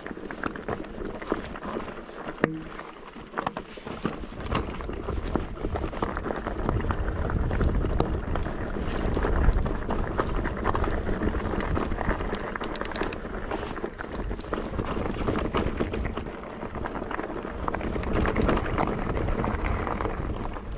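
E-mountain bike riding a rough trail: a continuous crunching rush of tyres on loose ground, with many small knocks and rattles from the bike, and wind on the microphone.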